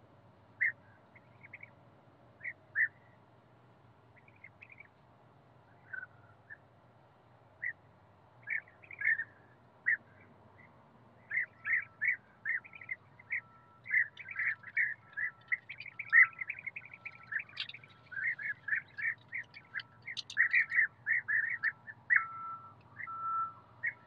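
European bee-eaters calling: short calls, a few scattered at first, then many in quick succession from about halfway through.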